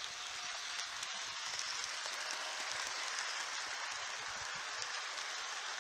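Model electric train, a steam locomotive pulling passenger cars, rolling past with a steady rattling rush of wheels on the track, a little louder in the middle as the cars go by closest.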